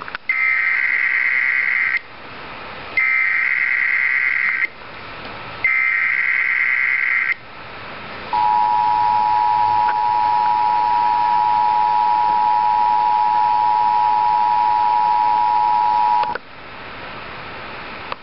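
Emergency Alert System header: three bursts of SAME digital data tones, each nearly two seconds long with about a second between them, then the steady two-tone attention signal held for about eight seconds before it cuts off. It signals a severe thunderstorm warning to follow.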